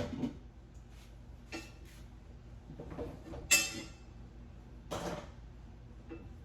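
Kitchen utensils knocking, clinking and scraping against cookware and a plate as food is served: a handful of separate short knocks, the loudest a ringing clink about three and a half seconds in.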